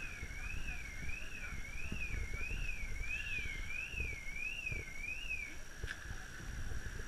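An electronic siren wailing, its high tone sweeping evenly up and down about eight times before stopping about five and a half seconds in, over low road rumble.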